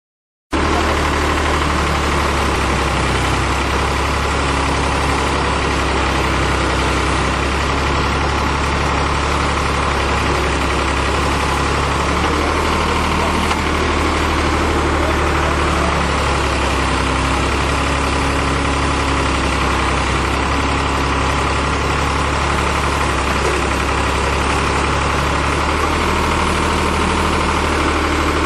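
Tractor diesel engine powering a backhoe loader, running steadily with a deep even hum. It cuts in abruptly about half a second in.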